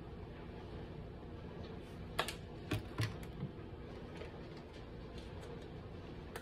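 A few sharp light clicks and knocks, bunched about two to three and a half seconds in, from spice containers being handled: a plastic shaker set down and a pepper tin picked up. A low steady hum of room tone runs underneath.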